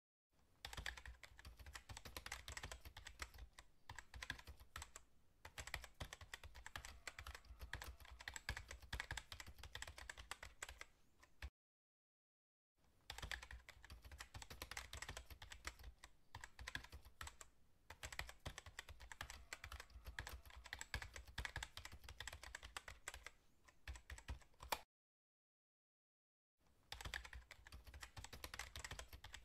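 Computer-keyboard typing sound effect: a quiet, fast run of key clicks that drops to complete silence twice, for a second or two each time, then starts again.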